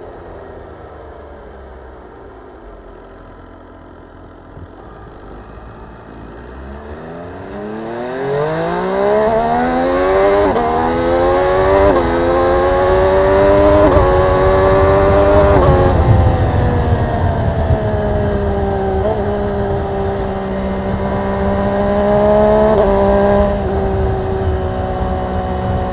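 MV Agusta Brutale 800RR's three-cylinder engine heard from on board. It rumbles low at first, then from about seven seconds in the revs climb with several brief dips in pitch at gear changes. After a peak it eases off and settles into a steadier run near the end.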